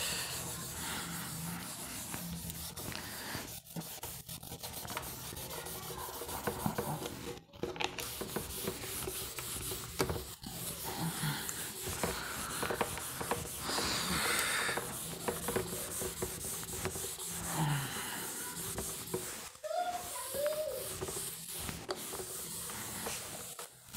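Whiteboard eraser rubbing across a whiteboard, wiping off marker writing in continuous back-and-forth strokes, with a few brief breaks between strokes.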